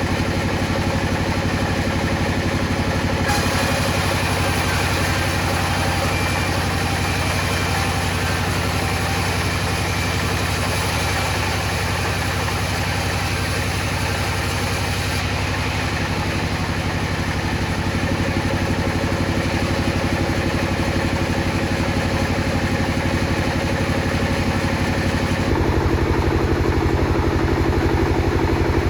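Table saw running steadily. Its sound changes about three seconds in and again around fifteen seconds, then turns louder and lower near the end.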